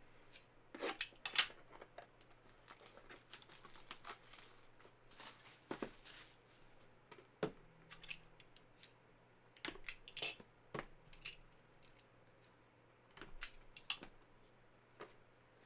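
Hands opening a card box and handling a graded card in its hard plastic holder: scattered light clicks, taps and brief rustling of packaging.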